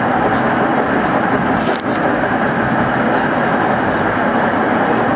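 Tram running along street track: a steady rumble and hiss of wheels on rails and running gear, with one sharp click a little under two seconds in.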